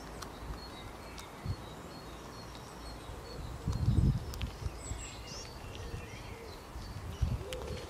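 Small birds chirping and calling in the background, with a few soft low thumps, the loudest about four seconds in.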